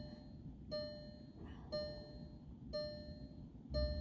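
Volkswagen Golf's dashboard warning chime dinging about once a second with the driver's door open, each ding a single bell-like tone.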